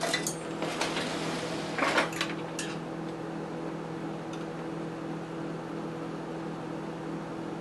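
A metal spoon clinking and scraping a few times inside a glass jar of whipped cream, the sharpest knock about two seconds in, over a steady appliance hum.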